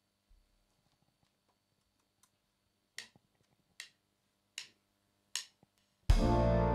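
Four evenly spaced clicks, a count-in for the band, about a beat every 0.8 seconds. Near the end the jazz band comes in together on a loud, held chord.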